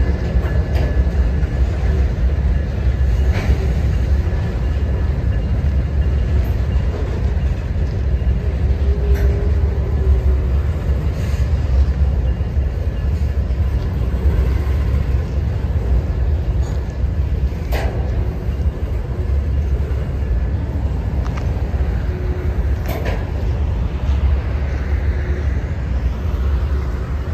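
Covered hopper cars of a potash freight train rolling over an elevated rail bridge: a steady low rumble of wheels on rail, broken by a few sharp clanks spread through the passage.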